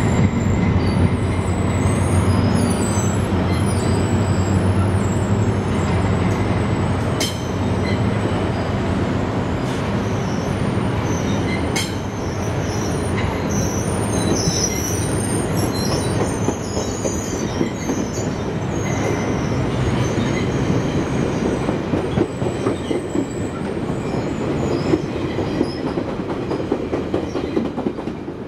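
GO Transit passenger train moving through the station: the diesel locomotive's engine runs steadily for the first few seconds, then the cars' steel wheels roll over the rails with high squealing and occasional clicks.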